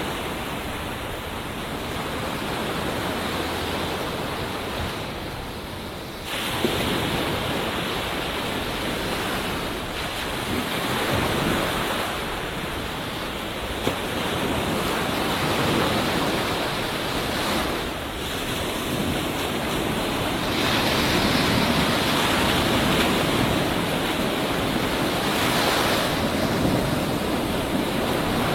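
Ocean surf: waves breaking and washing up a beach, a steady rush that swells and eases every few seconds. The level jumps suddenly about six seconds in.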